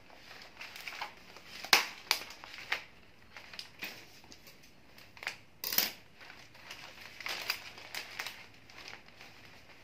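Tissue and wrapping paper crinkling and rustling as hands bunch and pleat it around a bouquet's stems, with irregular crackles and two louder sharp snaps, one near two seconds in and one near the middle.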